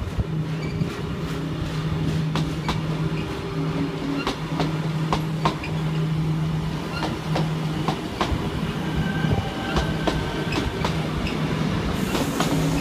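Sydney Trains Tangara electric multiple unit passing through the station without stopping. A low hum comes and goes as the cars go by, and the wheels click sharply over the rail joints.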